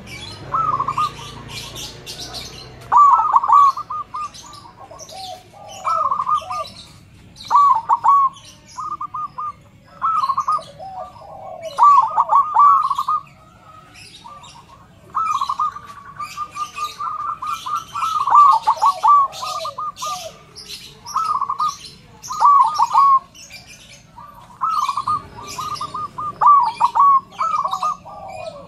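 Zebra dove (perkutut) cooing: loud, repeated phrases of quick trilled notes every second or two, with small birds chirping faintly and high in the background.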